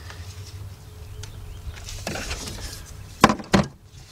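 Hands working on parts under a van's hood: a brief rustle about halfway through, then two sharp clicks about a third of a second apart near the end, over a low steady hum.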